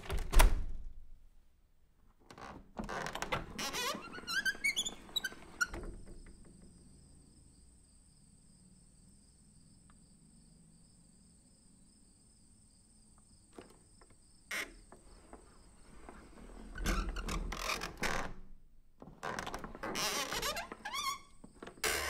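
A garden sliding door being worked: a sharp thunk at the start, then the door rattling and rolling along its track with short squeaks about four to five seconds in. After a quiet stretch there is a single click, then more rattling and sliding with a low thud in the last third.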